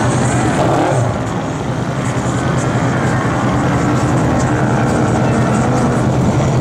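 Off-road vehicle engines running with a steady low hum.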